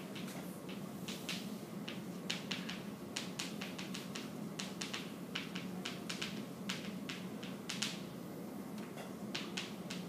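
Chalk writing on a chalkboard: a quick, irregular run of sharp taps and ticks as the chalk strikes and drags across the board, over a steady low room hum.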